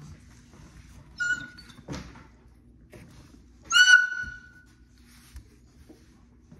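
Pit bull-type puppy giving two short, high-pitched whimpering cries: a faint one about a second in and a louder one just before the middle. There is a soft knock in between.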